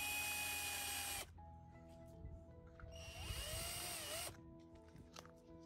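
Cordless electric drill running in two short bursts of a second or so each, the drill stopping abruptly after the first. During the second burst the whine dips and rises in pitch as the bit bores a hole in a plastic gacha capsule.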